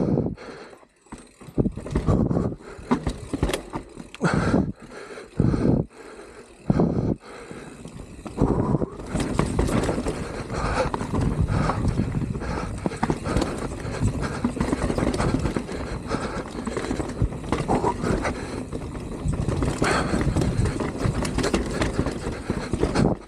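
Mountain bike ridden down a rough trail, heard from a helmet camera: a rush of wind and tyre noise with rattling knocks over bumps. It comes in uneven surges at first, then settles into a steady rush from about nine seconds in.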